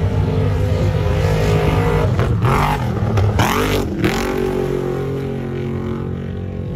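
Off-road race truck engines running and revving, with one truck driving past close by about two to four seconds in, its engine note rising and then falling away.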